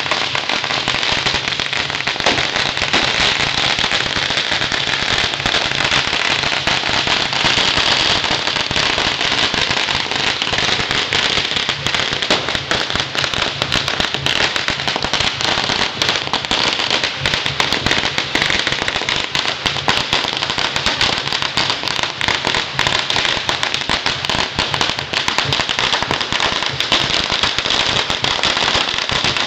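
Long strings of Chinese firecrackers going off in a continuous, dense crackle of rapid bangs, without a break.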